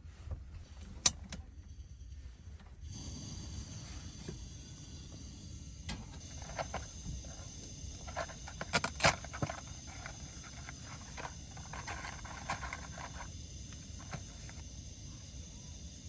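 A steady high insect chorus, like crickets, comes in about three seconds in over a low rumble. Scattered clicks and knocks sound through it, the sharpest about a second in and about nine seconds in.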